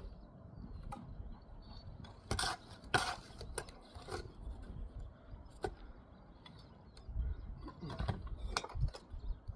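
Irregular knocks, clicks and scrapes of hand masonry work, a trowel and bricks against mortar, with the loudest clusters about two to three seconds in and again near the end.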